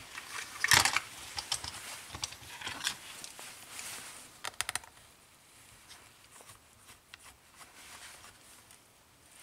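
Sharp plastic clicks and light rattles from handling a small screwdriver and its plastic bit case, the loudest about a second in and a quick run of four clicks around the middle. Then fainter ticks and scrapes as the screwdriver turns out the tiny screws of a laptop's metal bottom cover.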